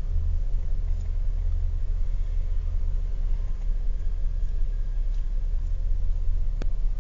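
Steady low rumble of a car heard from inside the cabin, with one sharp click near the end.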